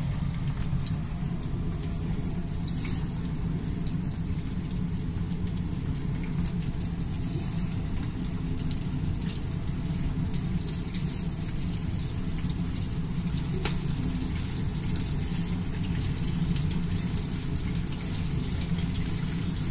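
Chicken karaage deep-frying in a pan of oil at about 180 °C: a steady sizzle and crackle over a steady low hum.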